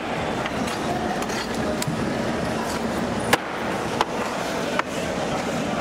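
Heavy cleaver-type knife chopping through fish on a cutting block: four sharp knocks, the loudest a little past the middle, over steady background noise.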